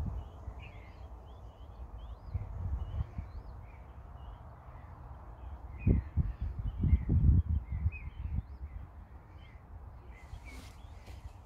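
Small birds chirping over and over around the lake, with wind gusting on the microphone in low rumbles that are loudest about six to seven seconds in.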